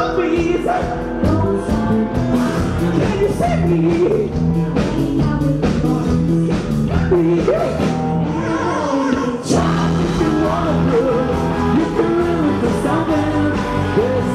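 A rock band playing live: a man singing over acoustic guitar, bass guitar and a steady drum beat, with a brief break about nine seconds in before the full band comes back in.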